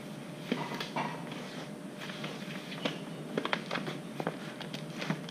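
A part's packaging being handled and opened by hand: scattered light clicks, taps and rustles.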